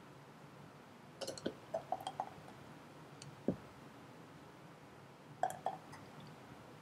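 Metal ladle clinking against a pot of hot strawberry jam and against a canning funnel on a glass jar while the jam is scooped and poured. A quick run of light clinks about a second in, a single knock midway, and two more clinks near the end.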